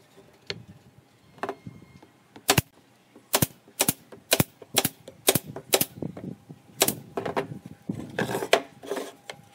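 Pneumatic brad nailer firing about eight shots at uneven intervals, a sharp crack each, driving brads through pine pallet slats into a box frame.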